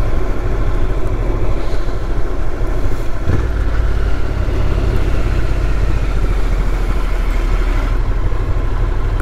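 Honda NC750X parallel-twin motorcycle engine running steadily while riding, heard from the rider's seat over a steady rush of wind and road noise. The low engine note shifts about three seconds in.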